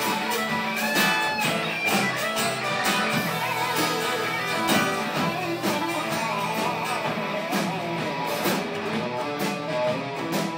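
Live band playing an instrumental passage, guitars to the fore over a steady drum beat.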